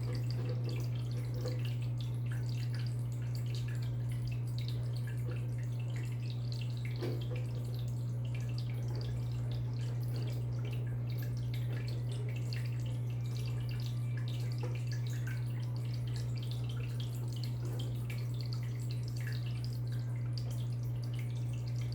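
Aquarium equipment running: a steady low electrical hum with water dripping and trickling over it in small irregular patters.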